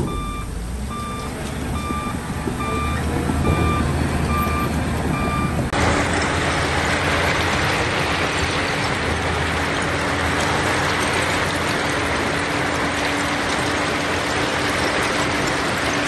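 Heavy construction vehicle's reversing alarm beeping a little over once a second over diesel engine rumble. About six seconds in it gives way abruptly to a louder, steady rushing noise with a low hum from the working machinery.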